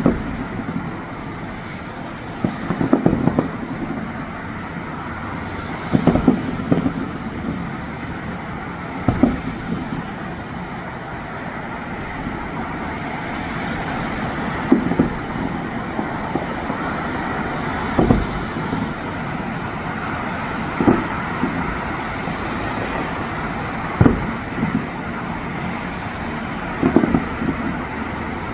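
Fireworks bursting: sharp booms every few seconds, some with quick crackling follow-ups, over steady background noise.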